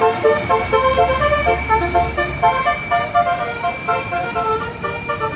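Basuri telolet bus horn, a multi-tone horn, playing a fast tune of short stepping notes over the low rumble of the bus engine.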